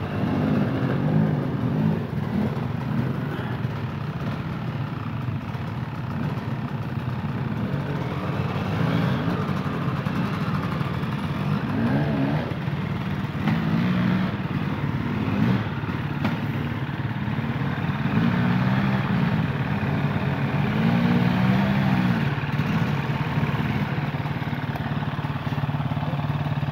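Enduro dirt bike engines revving up and down again and again as the bikes climb a steep slope, in repeated rising and falling swells that come thicker in the second half.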